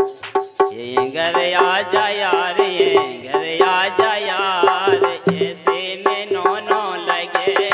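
Instrumental folk music: a dholak barrel drum played in a quick, steady rhythm under an electronic keyboard melody with bending notes. Near the end, bright jingling percussion joins in.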